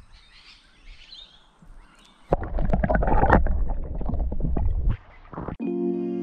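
Faint birdsong, then about two seconds in a sudden loud underwater rumbling and splashing as the camera's microphone is dunked in the river, lasting about three seconds. Music starts near the end.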